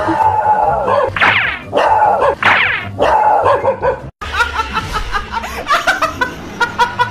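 A dog barking and yelping over and over. After a sudden cut about four seconds in, a woman laughs hard in quick, short bursts.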